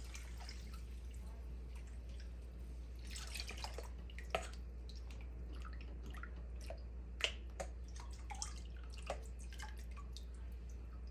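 Thin lassi poured through a metal strainer, dripping and trickling into a pot of masala, with a few sharp taps about four and seven seconds in.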